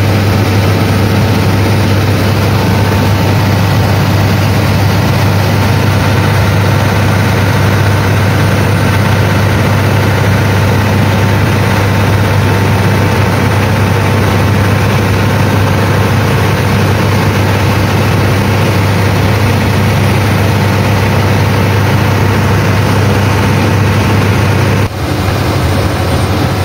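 Passenger launch's engine running steadily at cruising speed, a loud low drone over the rush of water along the hull. Near the end the sound drops and changes suddenly.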